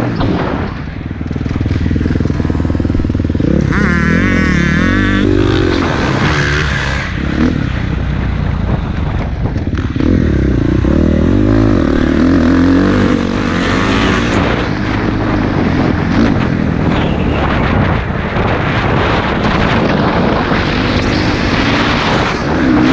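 Motocross dirt bike engine revving up and down as it accelerates and shifts around a dirt track, heard from a helmet-mounted camera. The sound changes abruptly a few times where clips are joined.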